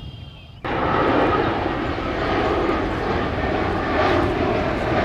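Jet airliner engines running loud and steady, cutting in suddenly about half a second in.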